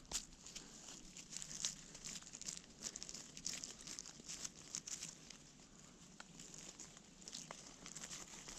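Faint, irregular crackling and scraping: soil being handled and rubbed by hand while digging out a metal-detecting find.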